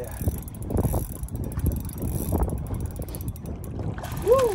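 Spinning reel's drag clicking rapidly as a hooked fish pulls line against a bent rod, with wind rumble on the microphone. Near the end comes a short, loud tone that rises and then falls.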